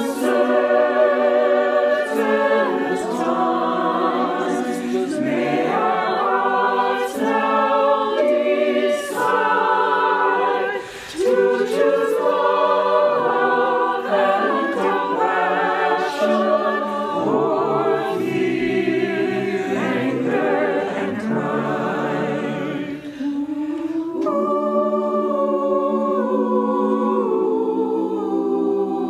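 Mixed choir of men's and women's voices singing in harmony, with a short break in the sound about eleven seconds in.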